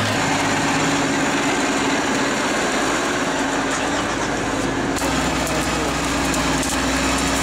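JCB tractor driving an FAE PTO-driven tiller and mulcher at work: a steady, loud engine and rotor drone with a constant low hum. The sound changes abruptly about five seconds in.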